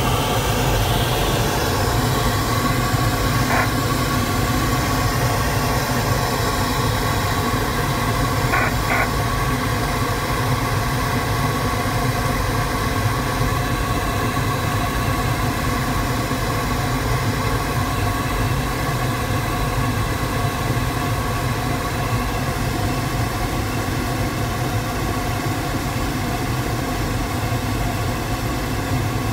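Steady rushing airflow noise inside the cockpit of a Duo Discus two-seat glider flying fast, with no engine running. Two brief high sounds come through it, about three and a half and eight and a half seconds in.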